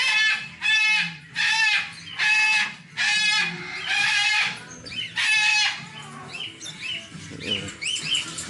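Umbrella cockatoo giving a run of about seven loud, wavering screeching calls in a steady rhythm, then falling back to faint short chirps near the end.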